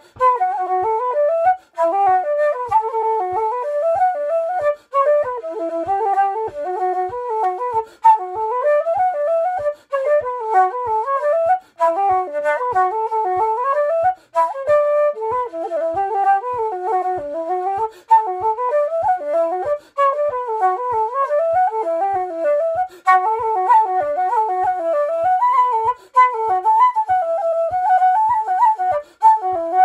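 Patrick Olwell wooden D flute playing a fast Irish reel: quick rising and falling runs of notes, broken every few seconds by short breath gaps.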